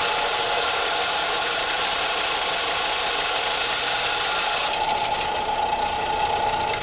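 Central Machinery 4x36 belt and disc sander running with a steady whine, with a workpiece pressed against the abrasive for the first five seconds or so, giving a loud sanding hiss, then running free again. The 3/4 horsepower motor keeps its speed under the pressure without stalling, now that it has been slid back on its mounts.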